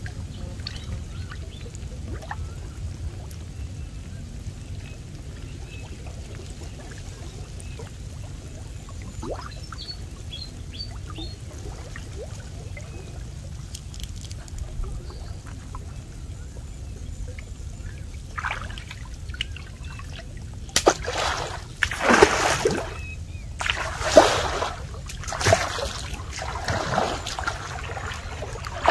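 Stream water: faint dripping and trickling at first, then, in the last third, a series of loud splashes and sloshes as a person wades through chest-deep water, over a low steady rumble.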